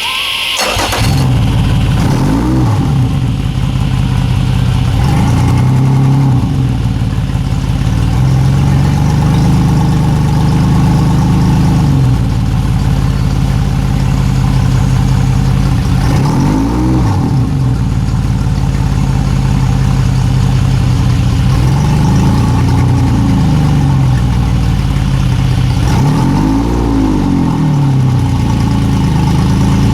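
Yamaha F200 four-stroke outboard running, fed by gas poured straight into its fuel-water separator because the primer bulb would not draw fuel from the tank. The engine comes in suddenly about a second in and is revved up and back down several times.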